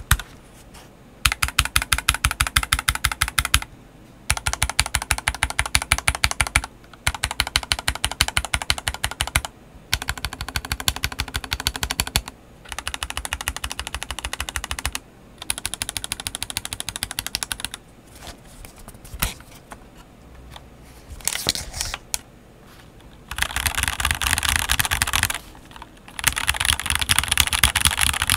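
Typing on a CSTC40 40% ortholinear hot-swap mechanical keyboard fitted with Gateron Yellow linear switches and YMDK OEM-profile keycaps. Runs of quick keystrokes a few seconds long alternate with brief pauses. A sparser stretch of slower presses comes about two-thirds of the way through, and a denser, louder run near the end.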